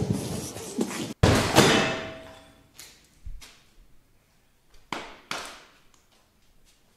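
A loud thud about a second in, dying away slowly as if echoing in a large hard room, then a few quieter knocks and thumps.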